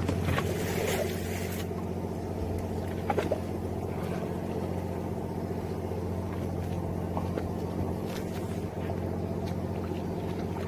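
Fishing boat's engine running steadily at sea, a low, even hum. A brief hiss near the start and a couple of light knocks about three seconds in.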